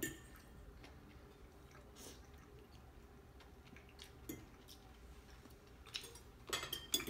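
Faint sounds of a person eating: quiet chewing, then a few light clicks of a fork and spoon against a plate near the end.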